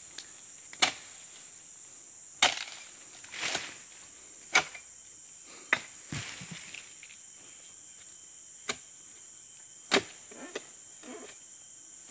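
A dodos, a chisel blade on a pole, chopping into the frond bases and fruit bunch stalk of an oil palm: about nine sharp, irregularly spaced strikes. A steady high insect chirring runs underneath.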